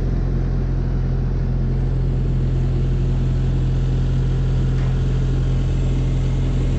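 An engine running steadily at constant speed: a deep, even hum with a noisy mechanical rumble over it.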